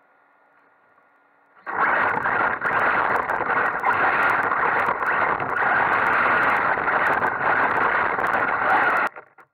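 Onboard sound of a radio-controlled off-road buggy driving across loose dirt and mulch. It is quiet at first, then about two seconds in a loud, dense rush of drivetrain and tyre noise starts, with scattered sharp clicks of debris. The noise cuts off suddenly about a second before the end.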